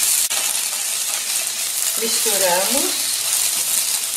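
Rice and lentils sizzling in olive oil in a pot over medium heat while a spatula stirs them: a steady hiss.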